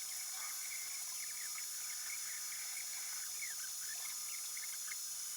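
3D printer's stepper motors in sped-up playback: a rapid string of short, high chirping glides, rising and falling, over a steady high whine.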